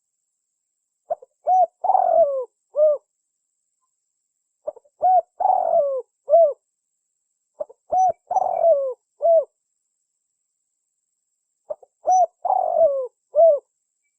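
Spotted dove (tekukur) cooing in four phrases a few seconds apart. Each phrase is a couple of short coos, then a longer, rougher coo that falls at its end, then a last short coo. It is a recorded lure call used to draw tekukur in.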